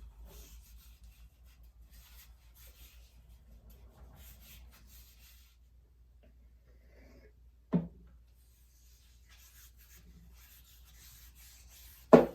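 Leather axe sheath being rubbed by hand with conditioner: repeated quick scuffing strokes that pause around the middle. Two knocks break in, one about eight seconds in and a louder one just before the end.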